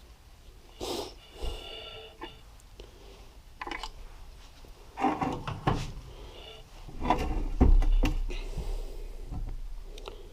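Irregular metal knocks and clatter of tools and engine parts being handled on a workbench, with the loudest run of knocks about seven to eight and a half seconds in.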